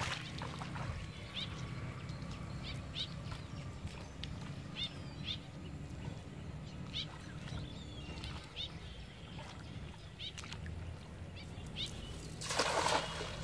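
Birds chirping in short rising calls, repeated every second or so, over a steady low rumble. Near the end a hand-thrown cast net lands on the river with a brief splash, the loudest sound.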